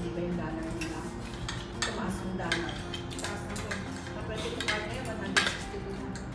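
Cutlery clinking and scraping against plates and bowls as several people eat, in irregular light clicks, with one sharper clink about five seconds in.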